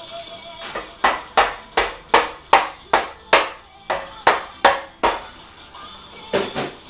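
Soft-faced mallet tapping a main bearing girdle down onto a Chrysler 420A engine block, seating it over the crankshaft. It gives a quick run of about eleven sharp taps, nearly three a second, then two more near the end.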